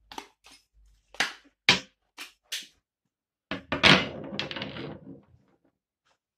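Cressi SL 55 speargun being handled: a run of sharp clicks and knocks, then a loud knock about three and a half seconds in, followed by a metallic ringing rattle that dies away over about a second and a half.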